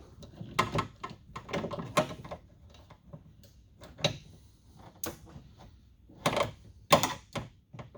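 A door glass weatherstrip being pried off its plastic clips on a truck door: irregular clicks, snaps and knocks with handling rustle, the sharpest near the end.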